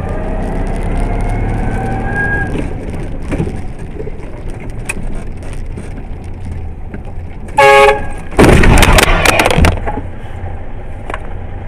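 Vehicle engine running, heard from inside the cab, its note rising over the first couple of seconds. About two-thirds of the way through comes a short horn blast, then, straight after, a loud collision: an impact and crunching lasting about a second and a half.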